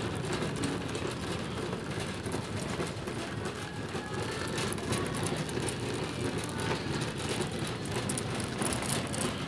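Shopping cart being pushed across a hard store floor: a steady rumble from the wheels with a patter of small rattling clicks.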